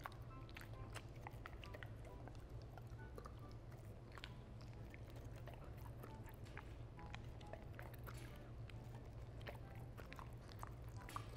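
A German Shepherd chewing and biting frozen cheese cubes: faint, irregular sharp clicks of teeth on the hard cubes, over a low steady hum.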